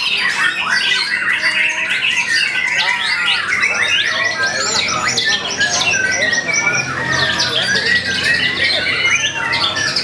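White-rumped shama (murai batu) singing a loud, unbroken run of quick, varied whistles, chips and trills, one phrase following straight on from the next.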